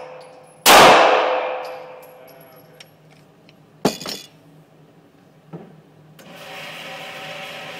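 A single 9mm Glock pistol shot, echoing off the walls of the indoor range and dying away over about a second. A sharp metallic clack comes about three seconds later, then a faint click. From about six seconds in, the electric target carrier starts with a steady whir as it runs the target back.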